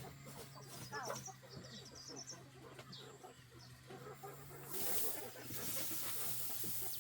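Poultry calling: dense low clucking mixed with quick high chirps, with a hiss coming up about five seconds in.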